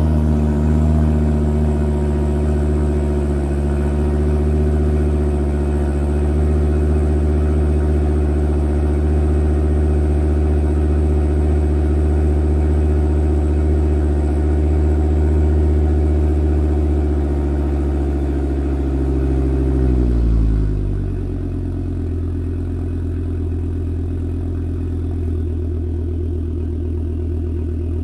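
Volvo S60R's turbocharged 2.5-litre inline five-cylinder engine, exhaust without catalytic converters, running at a steady fast idle just after a cold start. About 20 seconds in the idle drops to a lower, quieter speed and stays there.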